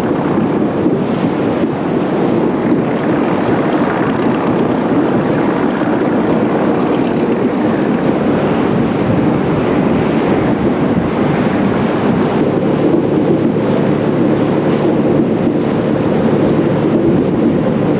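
Wind buffeting the microphone and rushing water on the deck of the paddle steamer Waverley under way, over a steady low hum of machinery.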